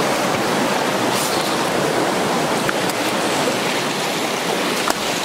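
Shallow creek water rushing steadily over a rocky bed, with a single light click near the end.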